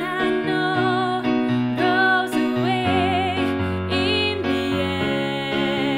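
Woman singing a belted phrase in chest voice with twang, held notes wavering with vibrato, over sustained backing chords.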